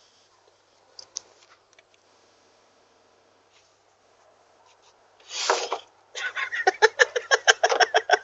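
A couple of faint clicks over near quiet, then about five seconds in a sudden loud snort- or sneeze-like burst. It is followed by a fast run of short breathy pulses, about five a second.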